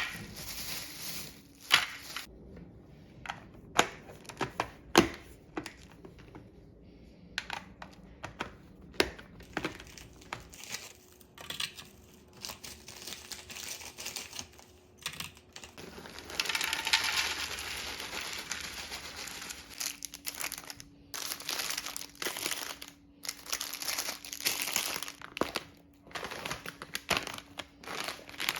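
Plastic food packaging crinkling, with many sharp clicks and knocks of items being handled, and a longer stretch of crinkling about two-thirds of the way through.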